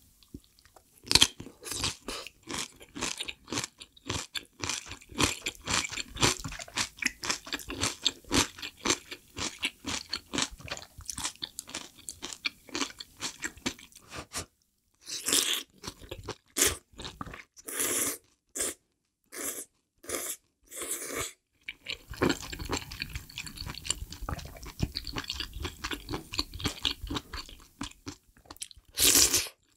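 Close-miked eating: a big mouthful of crunchy white kimchi (napa cabbage) chewed with many quick crunches for about the first fourteen seconds. Then a few separate louder mouth sounds as knife-cut noodles are eaten, and softer chewing of noodles and mushrooms toward the end.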